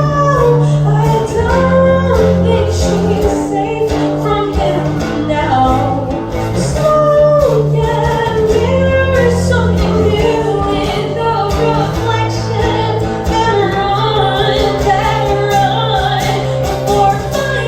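A song performed live: a lead vocal sings a gliding melody over sustained bass notes that change every couple of seconds and a steady beat.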